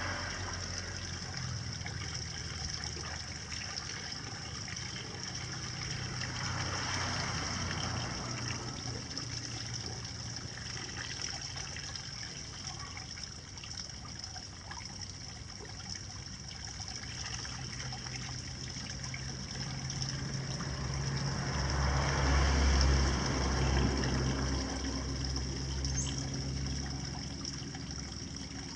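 Running water trickling steadily, swelling a little now and then.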